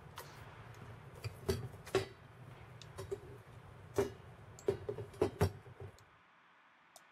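Scattered sharp clicks and knocks, about eight of them, each with a short ring, from cart parts and tools being handled during assembly. They sit over a low hum that stops suddenly about six seconds in.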